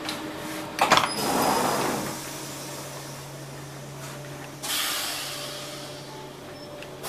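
Automatic sliding gangway door of a passenger carriage: a click and a hiss of air as it slides open about a second in, then a second hiss of air with a sudden start just before five seconds in. A steady low hum runs under it.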